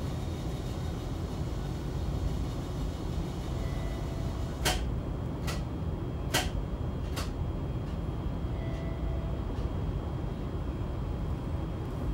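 Hiroden 5100-series low-floor tram running, heard inside the car as a steady low rumble. Four sharp clicks come a little under a second apart near the middle.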